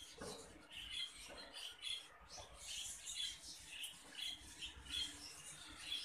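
Budgerigar chick giving faint, short, high squeaky peeps, several a second: begging calls as it is hand-fed through a tube.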